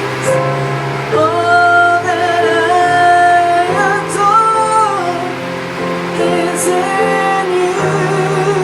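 Worship music: a woman's voice sings long, wavering held notes over sustained chords that change every second or two.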